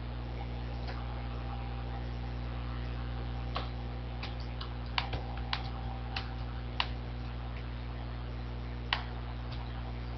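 Computer mouse clicking: about eight sharp, irregularly spaced clicks over a steady electrical hum.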